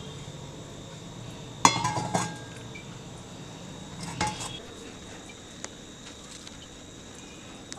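Stainless-steel kitchen vessels clinking and knocking together. A sharp ringing clank comes about a second and a half in, followed by a couple of lighter knocks, and another clink a little past halfway.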